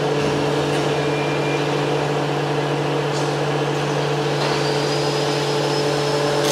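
Vacuum pump of an oil purifier running steadily under vacuum, an even motor hum. A faint high whistle comes in about two-thirds of the way through.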